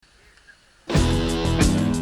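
Brief near silence, then backing music with guitar and a drum beat starts abruptly about a second in.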